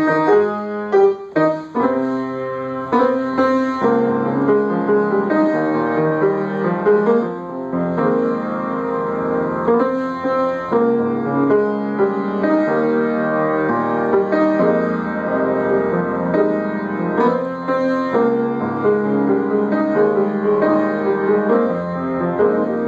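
Solo acoustic piano playing a gospel ballad in full two-handed chords, with a few sharp accented chords about a second in.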